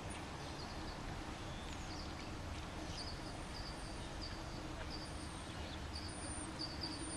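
A bird chirping repeatedly, short high notes about twice a second, starting a couple of seconds in, over a steady low rumble.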